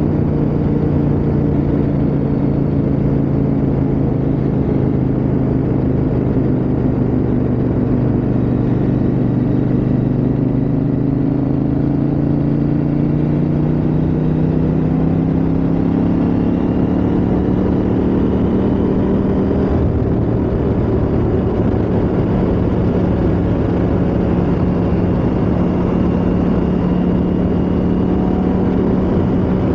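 KTM 890 Adventure R's parallel-twin engine running at cruising speed, with a steady rush of wind noise. The engine note rises slowly a little under halfway through, then holds steady.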